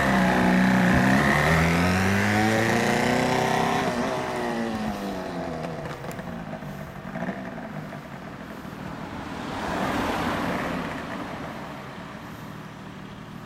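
Yamaha TZR250SP (3MA) rear-exhaust two-stroke twin revving up as it pulls away, then fading as the bike rides off. About ten seconds in, a swell of passing traffic noise rises and dies away.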